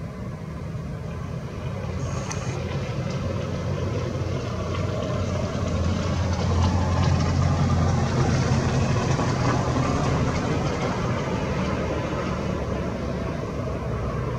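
Motor vehicle engine running with a low hum, growing louder about halfway through and then easing off slightly, like road traffic passing.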